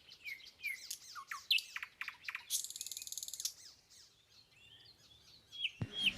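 Small birds calling: a string of short, quick falling chirps, with a fast buzzy trill about two and a half seconds in that lasts about a second.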